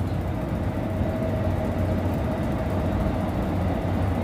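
Steady low engine rumble with a faint, even whine held over it.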